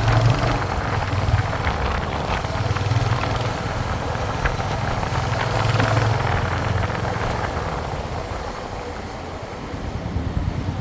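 Royal Enfield Hunter 350's single-cylinder engine and exhaust running with a steady low thump, dropping a little in level for a moment near the end.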